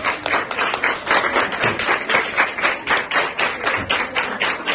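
People clapping together in a quick, steady rhythm, about four to five claps a second.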